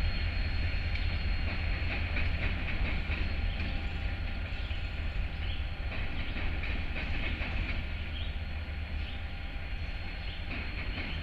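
Freight train rolling by: a steady deep rumble with scattered wheel clicks, slowly easing off.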